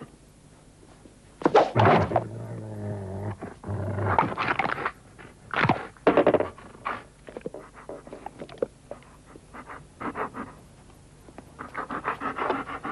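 German shepherd growling and barking, with a low held growl early on. Then comes a run of thumps and scrapes as the dog scuffles with men.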